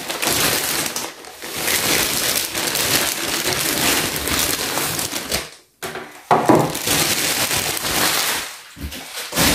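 Thin clear plastic bag crinkling and rustling as it is pulled off a moulded plastic toy building. There is a brief pause a little past halfway, and a knock near the end.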